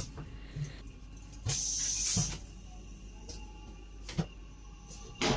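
A few clicks and knocks from the fittings of a train's toilet cubicle, with a short hiss lasting under a second about one and a half seconds in.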